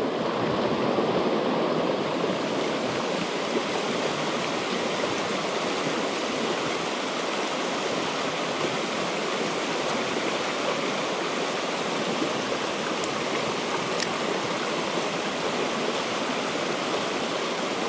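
Fast mountain stream rushing over rocks: a steady, even wash of whitewater noise.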